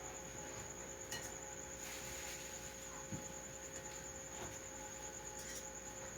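Quiet room tone: a steady high-pitched whine and a faint steady hum, with a few soft clicks.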